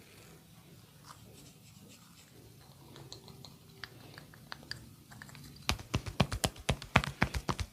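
Hands striking the body in a percussive massage: faint scattered taps, then about two seconds before the end a quick run of sharp slaps or taps, about six or seven a second.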